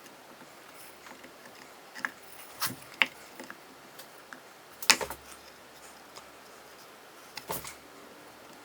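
Small walnut pieces clicking and knocking against wood as they are handled and set in place: a few scattered light taps, the sharpest about five seconds in.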